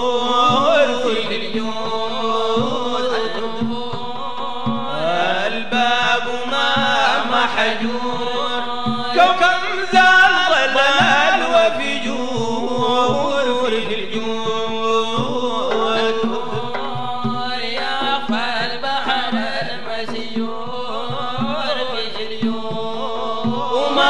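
Sudanese madeeh, a Sufi song in praise of the Prophet: men's voices singing and chanting a melody over a steady drum beat.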